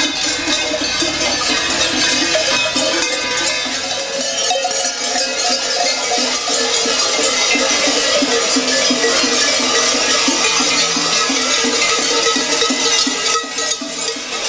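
Many large cowbells worn on the belts of running Klausen, fur-costumed St. Nicholas companions, clanging continuously and overlapping as the group runs.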